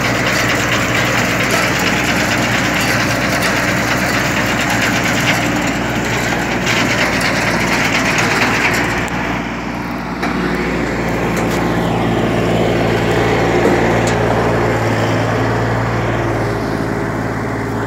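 Massey Ferguson 6028 28 hp compact tractor's engine running steadily while driving its front-mounted multi-crop harvester through grass. The brighter, noisier layer eases about halfway through, leaving mainly the steady engine note.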